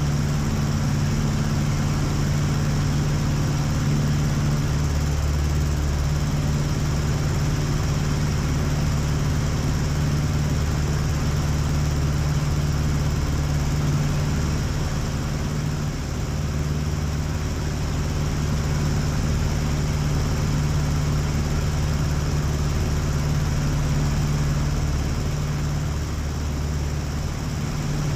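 Aeronca Chief light airplane in flight: its engine and propeller drone steadily, heard from inside the small cabin, with a slight dip in level about halfway through.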